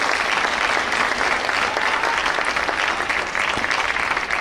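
Spectators clapping, a steady round of applause between points of a table tennis match.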